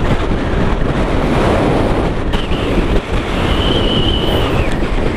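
Wind rushing over the scooter-mounted camera's microphone while riding, over the running engine of a Yamaha Aerox scooter; a faint thin high tone comes in for about a second near four seconds in.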